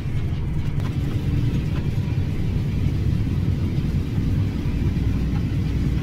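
Steady low engine rumble of farm machinery heard from inside a tractor cab: the tractor pulling the grain cart, with a John Deere 9600 combine running alongside to unload into the cart.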